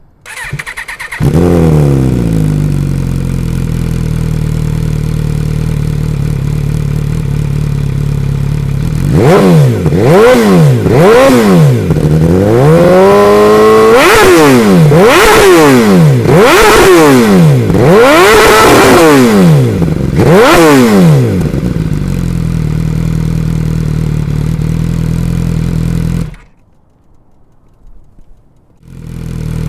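2014 MV Agusta F4 RR's inline-four engine through an SC-Project S1 exhaust. It is cranked on the starter and catches about a second in, falls from a fast idle to a steady idle, then about nine seconds in is revved in a series of quick blips, each rising and falling sharply. It settles back to idle, cuts off near the end, and starts again just before the end.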